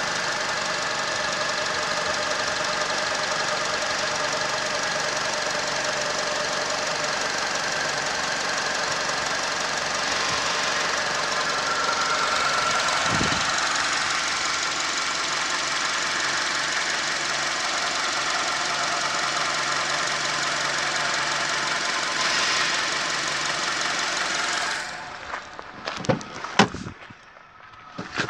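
Honda CR-V's 2.4-litre i-VTEC four-cylinder engine running steadily under the open bonnet. About 25 seconds in it drops away, and a few sharp knocks follow near the end.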